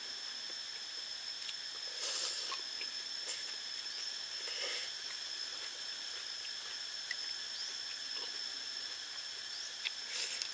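Insects droning on one steady high pitch in the surrounding forest, with short bursts of eating sounds from slurping and chewing noodles about two seconds in, near five seconds and near the end.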